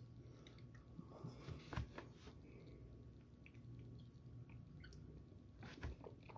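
Faint chewing of a mouthful of chunky hot sauce: soft, scattered wet mouth clicks, with a faint low hum underneath.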